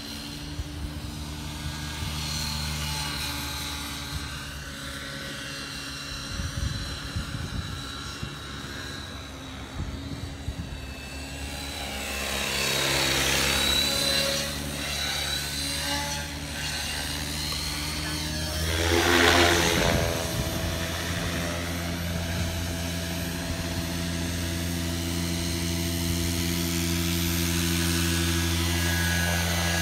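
Align T-Rex 550X electric RC helicopter in flight: the steady whir of its rotor blades and brushless motor. It grows louder twice as it passes close, about halfway through and again a few seconds later, the second pass the loudest, with the pitch sweeping as it goes by.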